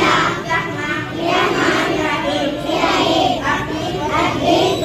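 A young girl singing a prayer into a microphone, a melodic chanted line that breaks phrase by phrase.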